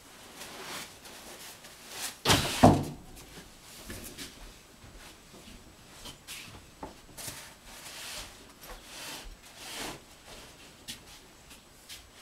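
Things being moved about and set down: scattered clunks and rustles, with two loud thumps about two seconds in.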